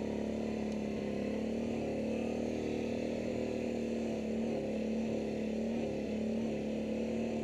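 ATV engine running at a steady speed while riding, holding one even pitch with no revving.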